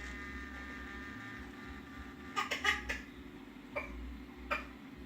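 Skip Hop baby mobile's motor running with a steady grinding hum while the mobile fails to spin, a sign of a stuck or failing drive. A ringing tone fades over the first second and a half. About halfway through comes a short loud cluster of sharp clicks, followed by two single clicks.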